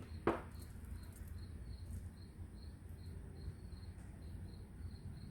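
A cricket chirping faintly and steadily, about three short high chirps a second, over a low hum. One sharp click about a quarter second in.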